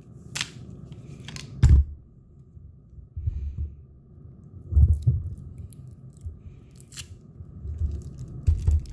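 Handling noise on a cluttered workbench: a plastic electrical tester and tools being picked up and set down among loose parts, a series of separate sharp clicks and dull knocks.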